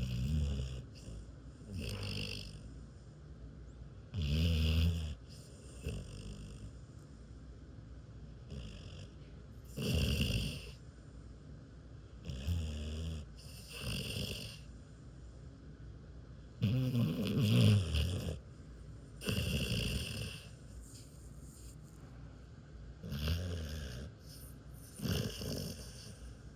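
Dog snoring in deep sleep: a low, buzzing snore roughly every two to three seconds, each lasting under a second, with quieter breathing in between.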